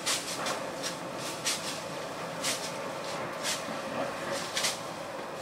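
Machete strokes slashing through dry weeds and brush: short swishing cuts, about one a second with a few in quick pairs, over a steady hiss.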